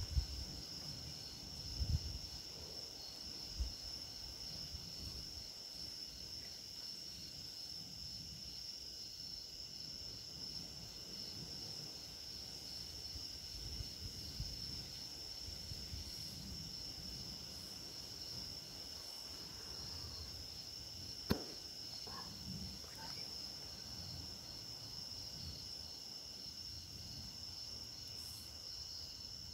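Crickets chirping steadily, a continuous high trill. A few soft low bumps come near the start, and one sharp click about two-thirds of the way through.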